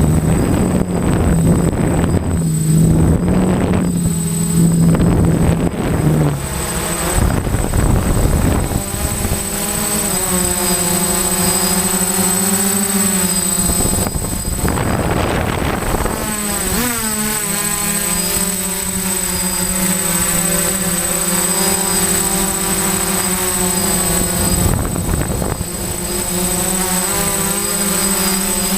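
DJI F550 hexacopter's electric motors and propellers whining in flight, the pitch wavering up and down as the throttle changes. Gusty wind noise covers the first several seconds, and a thin steady high whistle runs underneath.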